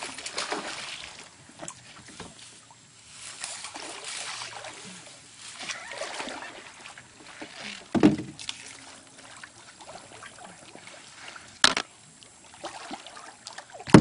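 Creek water sloshing and splashing unevenly as someone moves through it, with a sharp loud knock about eight seconds in and a shorter click a few seconds later.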